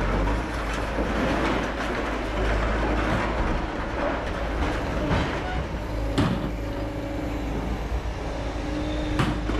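Liebherr LH50 scrap material handler running beside a scrap steel pile, with scrap metal clanking and scraping. Two sharp metal impacts stand out, about six and nine seconds in.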